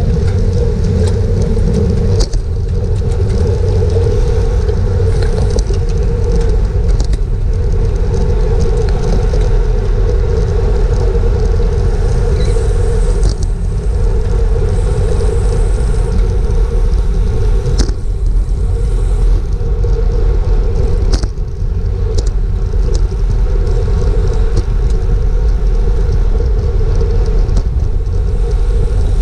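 Wind buffeting the microphone of a bicycle-mounted action camera at racing speed: a loud, steady low rumble, with a few sharp clicks along the way.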